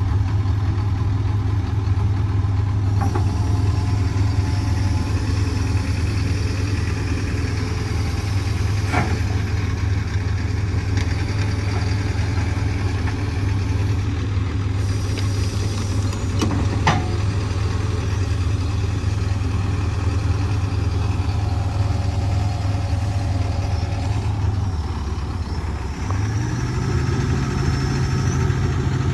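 Diesel engine of a Hitachi ZX245USLC-6 excavator running steadily, with three sharp clicks along the way. Near the end the engine dips briefly, then settles at a higher speed.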